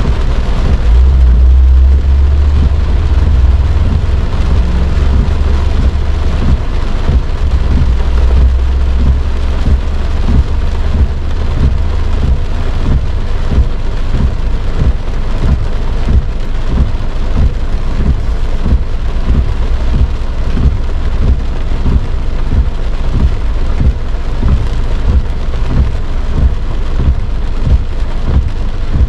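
Heavy rain drumming on a car's roof and windshield, heard from inside the cabin, with many irregular heavy drop thuds. A deep low rumble runs under the first half and fades out about halfway through.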